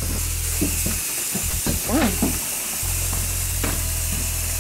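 Aerosol bug foggers discharging with a steady, high hiss, filling the rooms with insecticide mist. A steady low hum lies underneath, and a short gliding sound comes about two seconds in.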